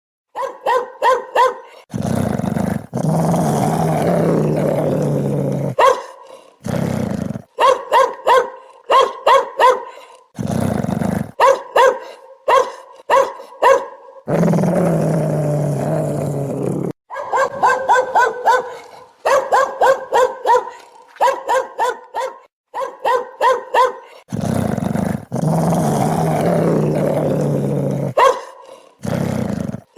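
Angry dog barking in quick runs of sharp barks, alternating with long low growls lasting a few seconds, the pattern repeating several times.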